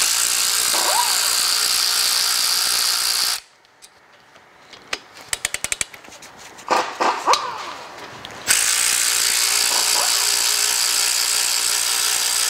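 A cordless power wrench runs twice, spinning out the brake caliper bolts: once for about three and a half seconds, then again for about four seconds near the end. Between the runs comes a quick series of clicks.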